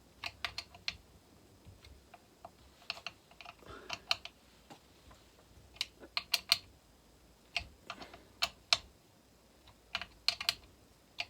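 Ratchet of a torque wrench clicking in short irregular runs of a few clicks, as a chainsaw's flywheel nut is tightened down.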